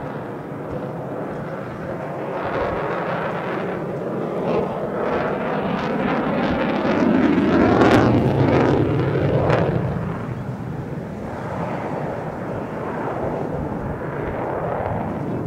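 Jet roar of an F-22 Raptor's two Pratt & Whitney F119 afterburning turbofans as the fighter flies a display manoeuvre overhead. The roar swells to its loudest about eight seconds in, then eases off.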